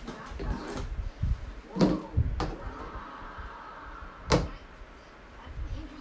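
Handling noise while a box fan's blades are wiped clean: three sharp knocks, about two, two and a half and four seconds in, over low rumbling bumps.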